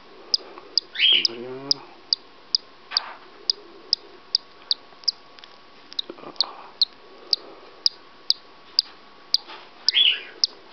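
Cockatiel chick peeping from inside its cracked egg as it hatches: short high peeps at a steady rate of about two a second. A louder rising call cuts in about a second in and again near the end.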